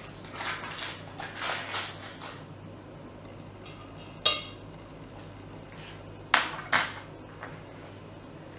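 Yeast-pitching handling sounds: rustling, then a teaspoon clinking on a glass demijohn, once with a short ring about four seconds in and twice more sharply near the end.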